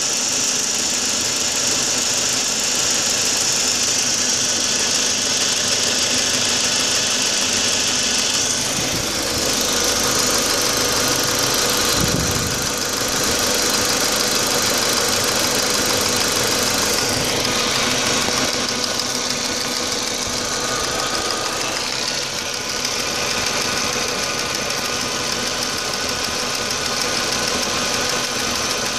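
Audi A4 B6's 1.8T turbocharged four-cylinder engine idling roughly, running steadily with a high hiss over it.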